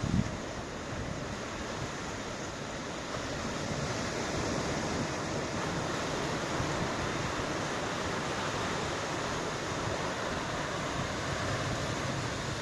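Ocean waves washing on the shore with wind, a steady wash of noise that swells slightly a few seconds in. A brief low thump at the very start, like a gust buffeting the microphone.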